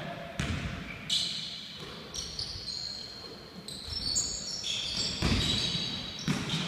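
Basketball bouncing on a hardwood gym floor at an uneven pace, echoing in the large hall, with short high-pitched squeaks of players' shoes on the floor.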